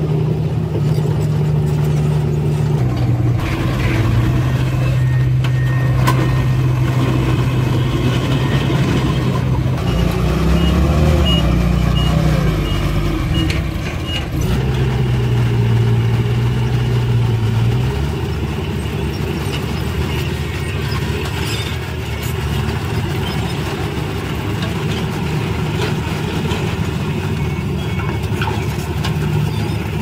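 Diesel engine of a loaded 5-ton dump truck running and shifting in pitch as it drives and manoeuvres, with a string of reversing beeps about a third of the way through. The engine runs on steadily as the tipper bed is raised to dump its load of soil near the end.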